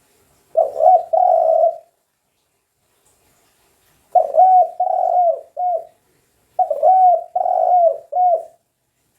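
Spotted dove (tekukur) cooing: three phrases of low hooting coos, each two or three notes long, the first about half a second in, then after a pause of about two seconds two more phrases close together.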